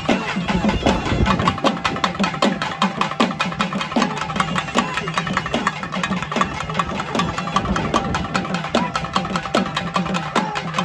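Traditional festival drumming: rapid, continuous drum beats keeping a steady rhythm.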